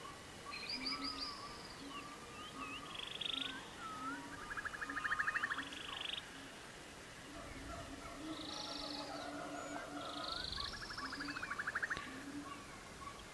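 Background nature recording of birds calling with chirps and rapid trills, over short low calls that repeat about every half second to second.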